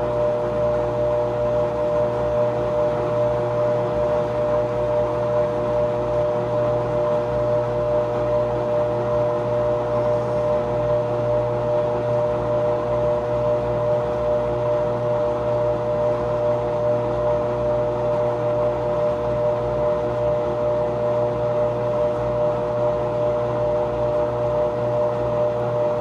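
GE GTW465 top-load washing machine spinning its tub at speed: a steady motor whine made of several constant tones over a low hum, with no stop-start of agitation.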